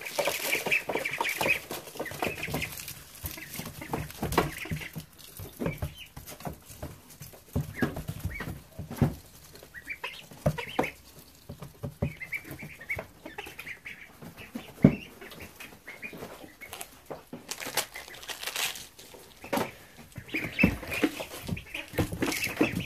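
A brood of Silver Appleyard, Welsh Harlequin and Rouen ducklings peeping in bursts while they peck and dabble at lettuce in wood-shavings bedding, with many small taps and rustles between the calls.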